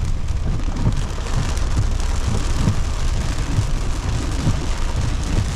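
Heavy rain pelting a car's roof and windshield, heard from inside the cabin, over the steady low rumble of the car driving slowly.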